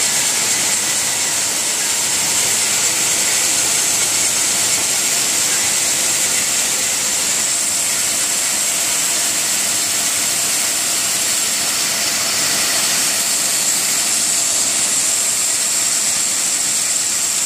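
Kraft paper rewinder running at high speed: a steady, unchanging high-pitched whirring hiss from the machine and the paper web winding onto the reels.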